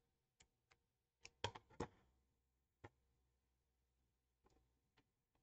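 Scissors snipping the overhang off a thin double-sided adhesive pad, then being laid down on a cutting mat: a handful of faint, sharp clicks, loudest about one and a half to two seconds in.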